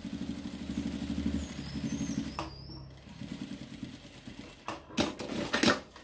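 Sun Special industrial lockstitch sewing machine running a fast topstitching seam, a steady rapid run of stitches. About two and a half seconds in it drops to a softer, slower run. A few sharp knocks come near the end.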